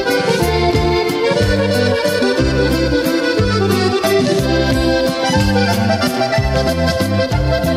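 Instrumental norteño music led by a button accordion, with bass notes under a quick, steady beat.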